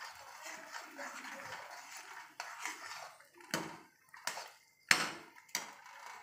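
Metal spatula scraping and clinking against a steel kadhai while stirring mango purée frying in ghee, over a soft sizzle. Four sharp clinks come in the second half, the loudest about five seconds in.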